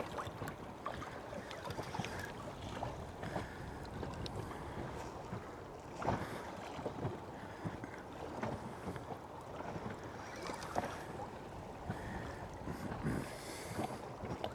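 Water slapping against a small boat's hull, with wind on the microphone and scattered light knocks.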